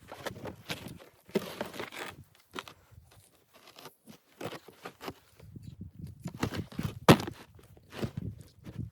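Irregular crunching footsteps in snow, with one sharp knock about seven seconds in.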